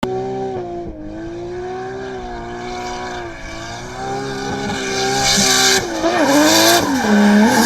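Car engine running and revving, with tyre squeal; it grows louder about four seconds in, rises and falls in pitch near the end, and cuts off suddenly.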